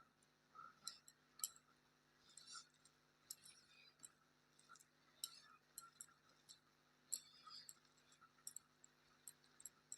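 Faint eating sounds: scattered soft clicks and wet mouth noises of chewing, with a few light clinks of a plate.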